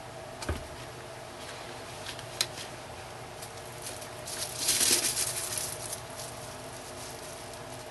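Plastic bubble wrap crinkling and rustling as gloved hands handle it and lay a strip of it over soap in a silicone mold, loudest around five seconds in. A dull thump about half a second in and a single sharp click near two and a half seconds.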